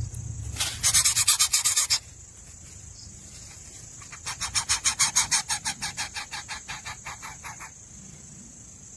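Nestling birds giving rasping begging calls in two bouts of quick pulses, about eight to ten a second: a short bout near the start and a longer one in the middle that fades out. A steady high-pitched hiss runs underneath.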